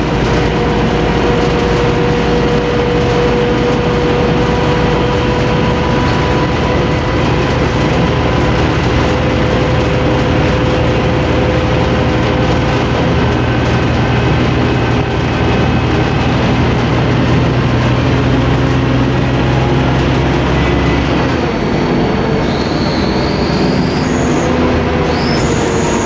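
Scania K-310IA bus's turbocharged five-cylinder inline engine running steadily with a loud growl, a steady whine sitting over the low engine note. About five seconds before the end the low note drops.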